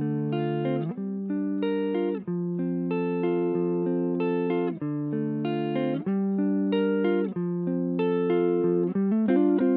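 Background music: a plucked guitar playing sustained chords that change about every second or two.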